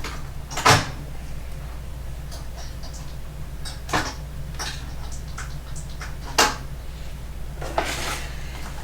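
Hard objects being handled and set down: a sharp knock about a second in, another near 4 s and 6.5 s, and a short clatter near the end, over a steady low hum.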